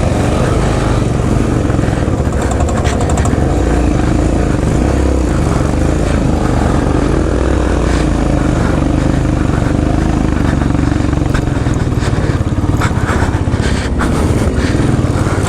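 Royal Enfield Himalayan's single-cylinder engine running steadily on a rough trail, with scattered clicks and knocks through it, more of them a couple of seconds in and again near the end.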